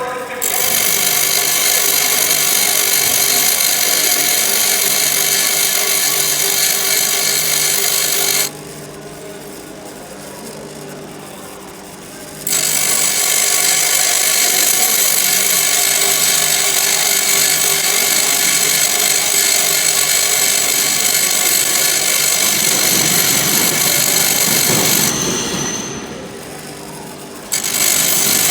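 Pedestal grinder's abrasive wheel grinding a steel drill bit in long passes, a loud gritty hiss of metal on stone over the steady hum of the running motor. The grinding stops for about four seconds a third of the way in, and again for a few seconds near the end, while the wheel keeps spinning.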